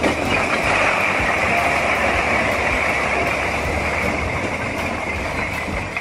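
A truckload of clay bricks sliding off a tipped truck bed and clattering down onto the ground in one continuous dense rattle, starting abruptly.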